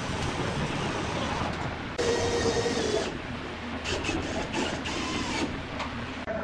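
Corded electric drill whirring in short bursts while a plaster ceiling medallion is fixed: one burst of about a second starting two seconds in, then another stretch from about four to five and a half seconds.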